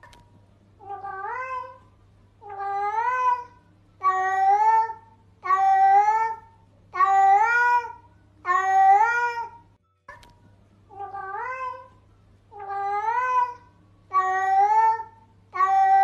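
Domestic cat meowing to get attention, over and over: about ten meows, each about a second long and rising in pitch, one roughly every second and a half.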